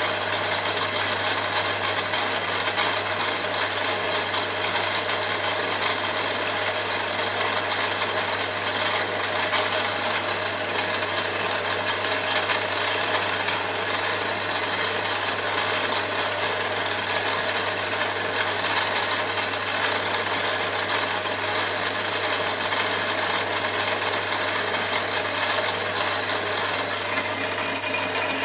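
Milling machine spindle running steadily with a constant hum, its sound shifting slightly near the end.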